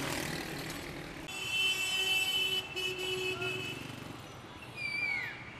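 Road traffic with a car horn sounding long and steady starting about a second in, the loudest sound here. Near the end comes a short falling tone, like part of a siren.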